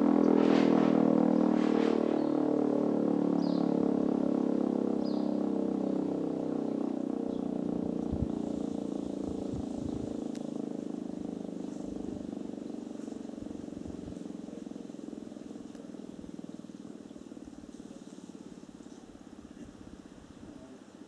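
Fire-alarm siren winding down: its tone slides slowly lower in pitch and fades away over about twenty seconds as the rotor coasts to a stop.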